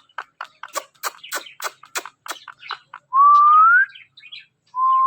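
Ringneck parrot giving a quick run of short clicking chirps, then two loud whistles, each held and rising at the end, the second starting near the end.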